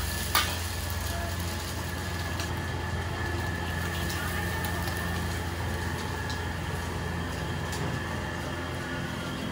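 Steady low mechanical hum, with a thin high whine above it and a sharp click shortly after the start.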